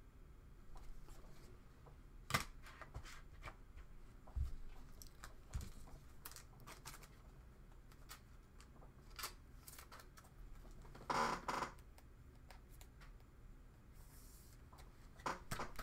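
Faint handling noise of trading cards and plastic card holders on a table: scattered light clicks and rustles, with a sharp click a couple of seconds in and a louder rustle about eleven seconds in.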